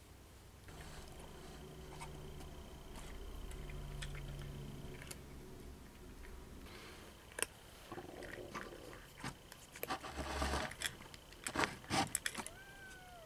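Cat eating from a plastic bowl: scattered small clicks and crunches, with a low steady hum under the first half. Louder noisy bursts come near the end, and then one short meow.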